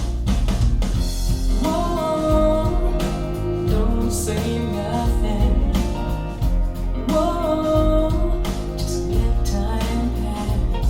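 A song with a singing voice, guitar, deep bass and drums, played back through SVS Prime Tower loudspeakers.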